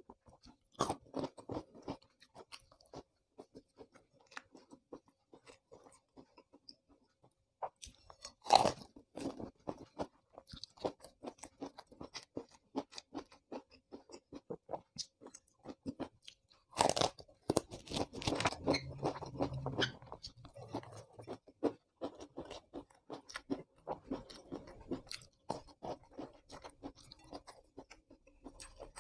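Close-miked chewing and crunching of raw vegetables dipped in sambal, wet mouth clicks throughout. There are louder crunching bites about eight and seventeen seconds in.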